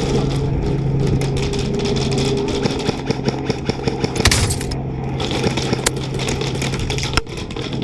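A gun truck's engine running steadily, under many sharp cracks of airsoft gunfire. There is a harsh burst about four seconds in.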